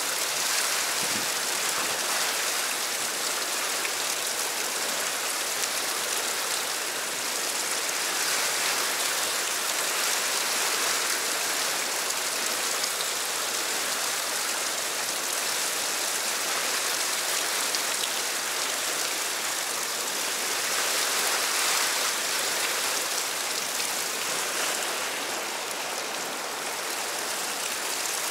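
Whitewater rushing steadily through a narrow rocky channel: a continuous, even roar of turbulent, foaming water.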